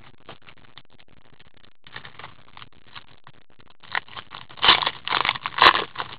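Trading-card packaging and 2013-14 Panini Select hockey cards rustling and crinkling in gloved hands. Faint rustles and ticks at first, then loud crinkling and scraping from about four and a half seconds in, with one sharp click near the end.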